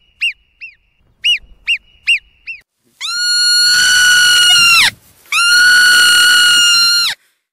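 Marmot whistle calls: a run of short, clear chirps, each rising and falling, then two long, steady, loud whistles of about two seconds each, which dip in pitch as they end.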